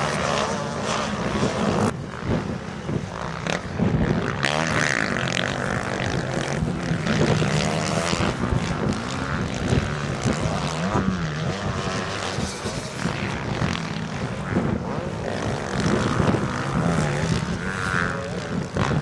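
Motocross dirt bike engines revving up and down through the gears, two or more bikes at once, the pitch rising and falling again and again.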